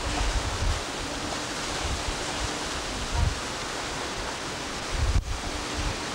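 Wind buffeting a camcorder microphone: a steady hiss with irregular low rumbling gusts, broken by a brief dropout about five seconds in.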